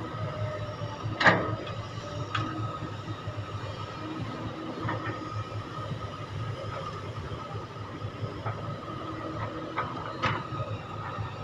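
Excavator diesel engine running steadily under load while it loads a dump truck, with a few sharp metal clanks, the loudest about a second in and another near the end.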